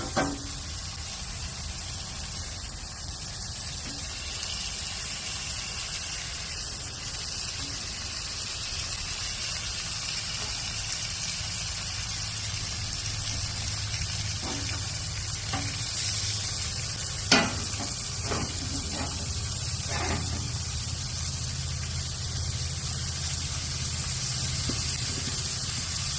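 Bacon strips and sausage patties sizzling steadily on a Blackstone flat-top griddle, with a few sharp knocks, the loudest about seventeen seconds in.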